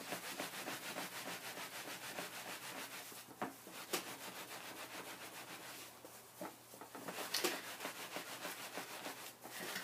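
Hands rubbing a wet, soapy wool felt hat hood back and forth on a non-slip mesh mat, a fast, continuous scrubbing, with a couple of sharper taps about four and seven seconds in. The rubbing agitates the felt so it fulls and shrinks.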